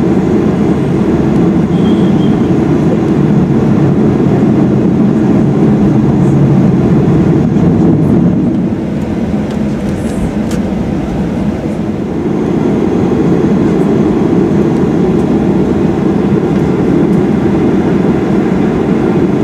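Airliner cabin noise while taxiing: a steady low rumble of the jet engines and the rolling aircraft, easing slightly for a few seconds about halfway through.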